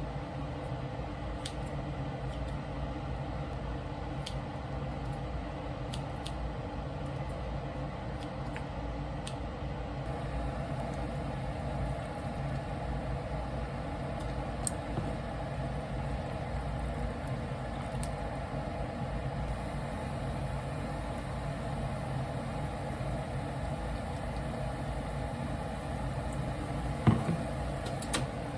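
A steady low mechanical hum, with faint light clicks now and then and one sharper knock near the end.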